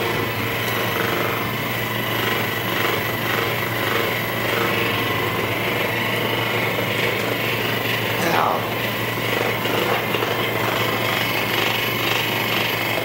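Handheld electric massager running steadily, a continuous low motorised buzz with a rapid pulsing beat.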